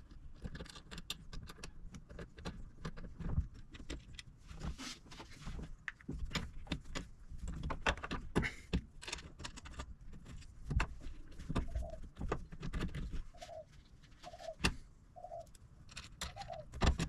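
Small metal clicks, clinks and rattles of bolts being started by hand into a catch can bracket under a car's bonnet. In the second half a dove coos about five times at a steady pace of roughly one a second.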